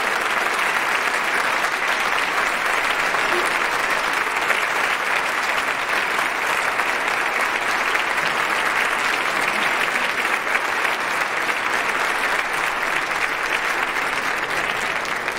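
Audience applauding steadily, the clapping starting to die away near the end.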